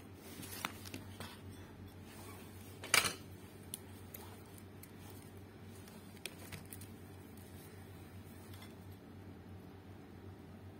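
A few light clicks and knocks from a circuit board and tools being handled on a workbench, the loudest a sharp click about three seconds in, over a faint steady low hum.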